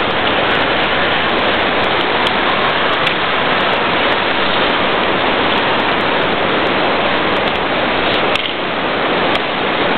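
Steady, loud rushing noise, even throughout with no distinct strikes or tones.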